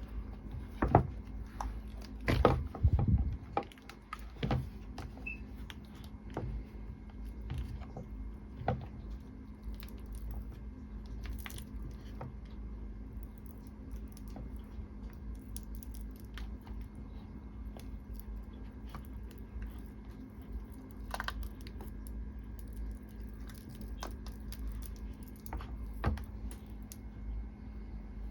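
Chilled no-bake nut bars being handled and worked out of a silicone cereal-bar mould: a few knocks and clunks in the first few seconds, then scattered small clicks and crackles over a steady low hum.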